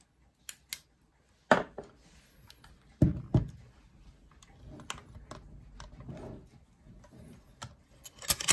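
Clicks, knocks and rubbing from hands handling a Mamiya C330 Pro twin-lens reflex camera. A loud knock comes about three seconds in, and a burst of louder clicks near the end as the folding viewfinder hood on top is worked open.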